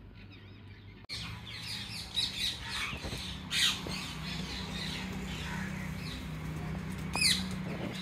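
A flock of rose-ringed parakeets squawking and chirping at feeders: many short, shrill, overlapping calls, the loudest about halfway through and near the end, over a low steady hum.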